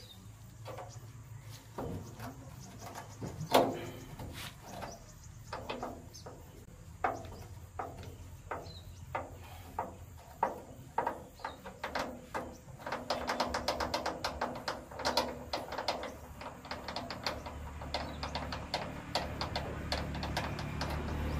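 A hand wrench working the mounting bolts of a truck's steel fuel tank: scattered metal clicks and knocks, turning about two-thirds of the way through into a fast run of clicks as the bolt is turned. A low rumble joins near the end.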